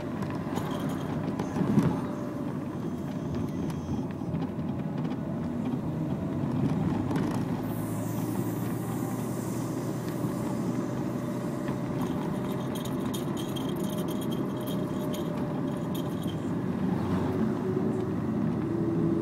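Car interior while driving on a country road: a steady low rumble of engine and tyres, with a short thump about two seconds in.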